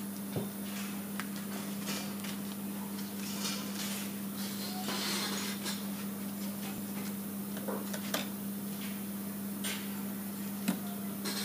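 Paper rustling and scattered small clicks and knocks of hand handling, over a steady low electric hum.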